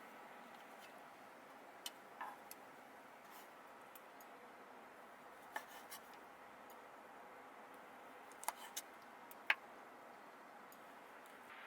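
Quiet background hiss with a handful of faint, sharp clicks and clinks at irregular intervals, like small hard objects being handled.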